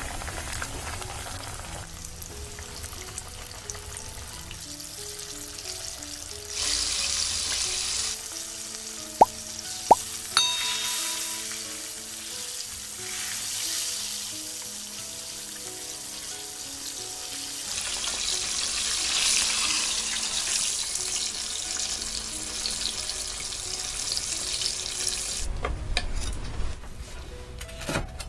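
Flour-and-egg-coated chicken breasts deep-frying in hot oil in a pan, a steady sizzle that swells louder at times. There are a couple of sharp clicks around the middle, and soft background music plays underneath.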